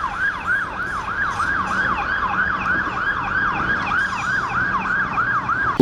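Electronic siren with a fast, repeating falling wail, about four sweeps a second, that cuts off at the end.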